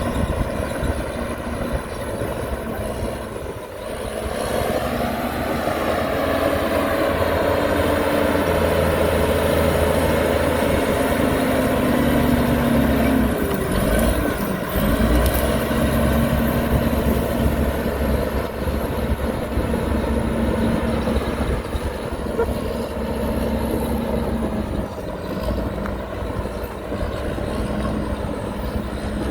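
Diesel engines of heavy earthmoving machinery running, with the engine note shifting up and down several times.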